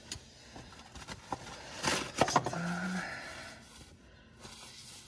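Handling noises: a cluster of sharp knocks and clicks about two seconds in, followed by a short scrape.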